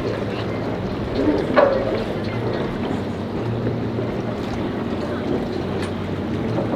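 Boat engines running steadily at low speed, a low even hum under a noisy wash, with one short sharp sound with a falling pitch about a second and a half in.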